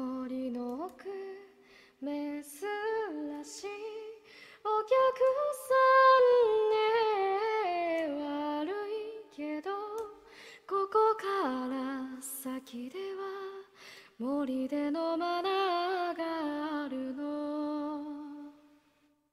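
A woman singing a cappella in Japanese, a gentle melody of held, gliding notes sung in phrases with short pauses between them. The voice stops shortly before the end.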